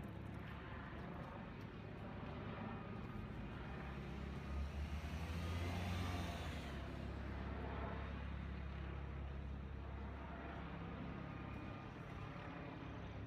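Car driving along a road: a steady low engine and road hum, swelling louder about halfway through and then easing back.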